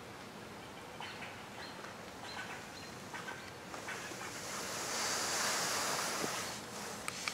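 A gust of wind rushing through the treetops, swelling in about halfway through and fading again after about three seconds. A few faint short chirps come before it.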